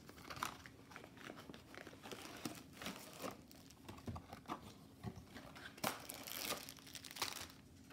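Plastic packaging crinkling and rustling as a rolled canvas in a clear plastic sleeve and a bagged set of parts are slid out of a cardboard box: faint, irregular handling noises, a little louder about six and seven seconds in.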